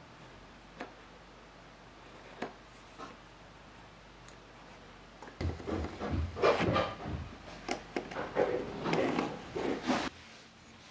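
Craft knife scraping through thin wooden deck planking in a rapid run of short cutting strokes, starting about halfway through and stopping shortly before the end. A few faint clicks of small wooden parts come before it.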